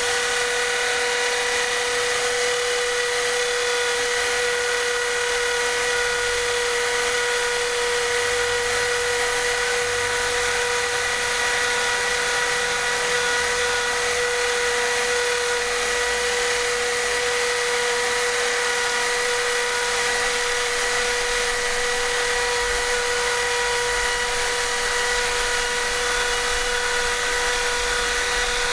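Mini CNC machine's spindle motor running with a steady, even whine as it mills a Rowmark engraving-plastic sheet.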